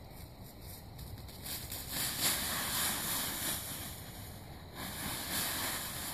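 Dry fallen leaves rustling and crunching as a child runs into a leaf pile and flails about in it, loudest around two to three seconds in.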